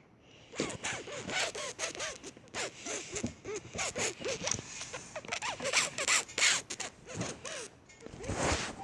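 Noise made on purpose by a child: a fast run of short scratchy, rasping strokes with little squeaky pitch sweeps, several a second for about eight seconds.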